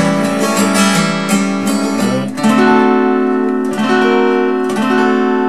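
Capoed acoustic guitar strummed with a pick: single chords left to ring, changing between A7 and A7 with the first fret of the top E string added. A fresh strum comes about two and a half seconds in, and lighter ones follow near the end.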